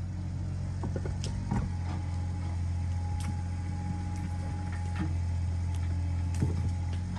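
An engine running steadily with a low hum, with scattered clicks and knocks over it.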